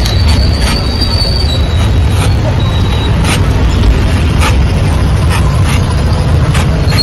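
Large knife chopping the husk of a green coconut on a wooden board, a short stroke about every half second to a second, over a steady low rumble of street traffic. A thin high squeal sounds through the first three seconds.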